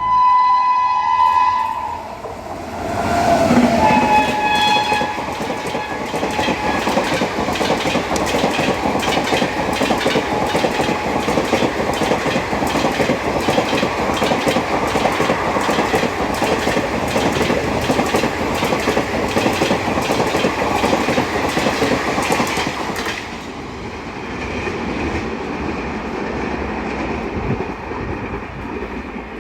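A WAP-7 electric locomotive sounds its horn, and the horn sounds again a couple of seconds later at a lower pitch as the locomotive passes. The Saraighat Express coaches then pass at about 110 km/h with a rapid, continuous clickety-clack of wheels over rail joints. After about twenty seconds this drops to a quieter rumble as the train goes by.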